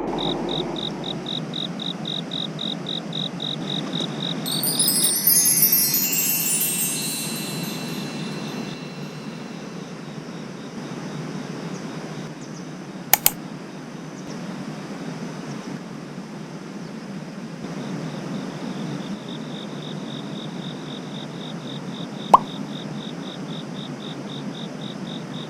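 Insects chirping steadily in a fast, even pulse over a low rushing noise. A cascade of high chime-like tones sounds about four to seven seconds in, and there are a few sharp clicks later on.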